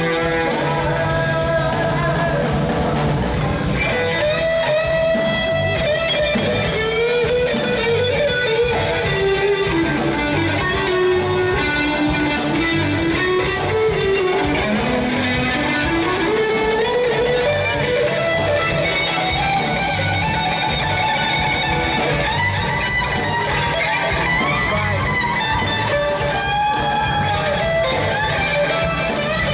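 Music led by guitar, with a melody moving up and down over a steady beat.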